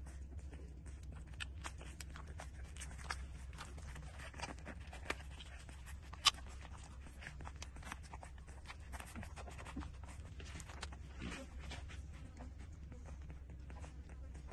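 Puppies suckling at their mother's teats: faint, irregular sucking and smacking clicks, with a sharper click about six seconds in, over a steady low hum.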